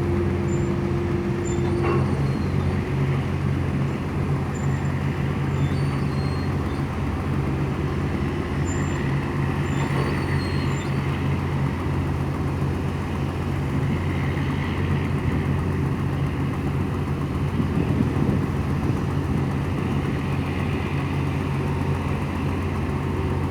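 Tugboat diesel engine running steadily under load, a constant low drone. A steady higher tone over it cuts off about two seconds in.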